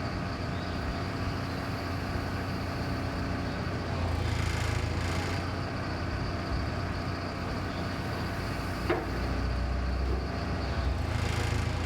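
Engine running steadily with a low hum that swells slightly a couple of times, and a single sharp knock about nine seconds in.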